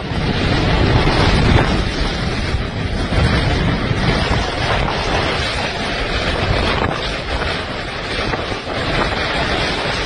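Hurricane-force wind blasting across the microphone: a loud, unbroken rush of noise that rises and falls a little in strength.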